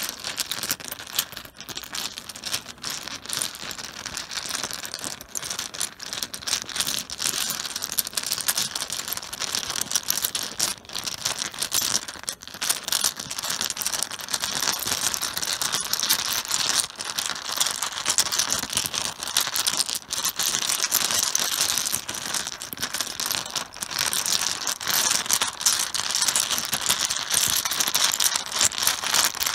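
Mahjong tiles clattering against each other on a cloth-covered surface, being mixed: a dense, continuous run of small clicks.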